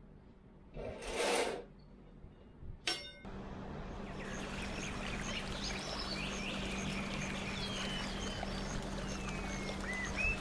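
A short rustling swish and a sharp clink. Then a steady trickle of running water with birds chirping and whistling over it, which starts abruptly and cuts off suddenly at the end.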